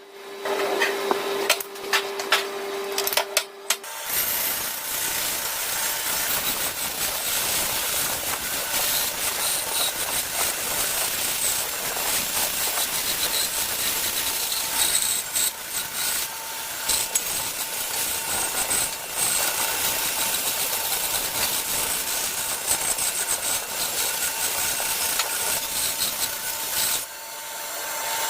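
A tool working wood: a few sharp knocks, then from about four seconds in a dense, steady scraping noise that carries on until near the end.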